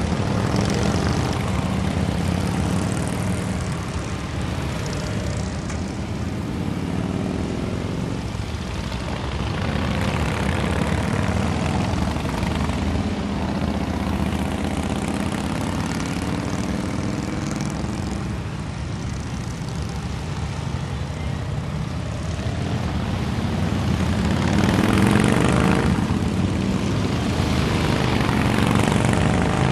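A long column of motorcycles, mostly Harley-Davidson V-twin touring bikes, riding past at low speed, their engines blending into a steady rumble. It swells as bikes pass close, loudest about 25 seconds in and again near the end.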